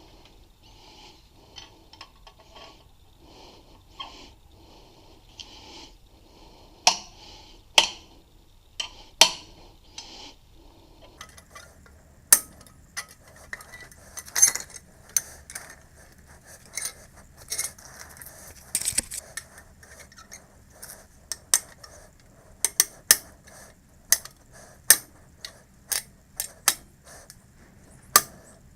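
Sharp metallic clinks and taps of tools and small metal parts being handled, irregular and frequent through the second half. Before them comes a fainter, even rhythmic rubbing at about two strokes a second, with a few louder clicks.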